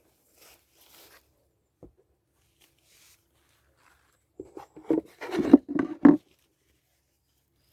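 Rustling and rubbing handling sounds: a few faint rustles and a single click, then a cluster of loud, short rubs and knocks past the middle.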